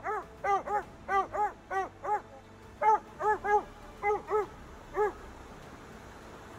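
Coonhound barking steadily at a tree, about two short barks a second, each rising and falling in pitch: the bark of a hound that has treed a raccoon. The barking stops about five seconds in.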